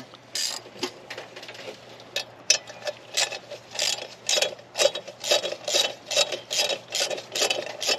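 Ratchet wrench clicking in short back-and-forth strokes as a bracket bolt is run down into the power steering pump bracket, settling into about two strokes a second.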